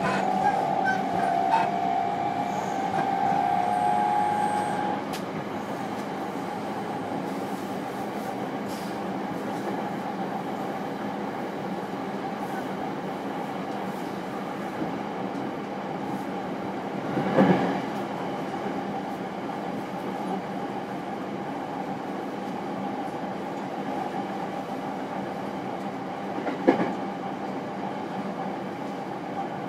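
JR East E231 series train heard from inside a motor car: the inverter and traction motors whine as the train powers away, the whine dropping off about five seconds in. The train then runs on with a steady rumble of wheels on rail and a faint held motor hum, with two short knocks, one past the middle and one near the end.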